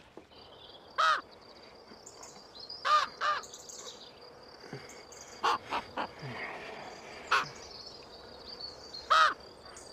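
A crow-type bird cawing in short, harsh calls, about eight in all, some in quick pairs or threes, over a steady high trill of crickets.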